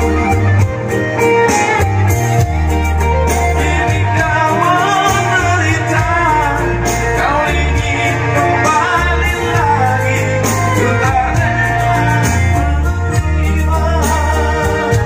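A man singing live into a microphone over electronic keyboard backing, played loud through a PA sound system with heavy, pulsing subwoofer bass.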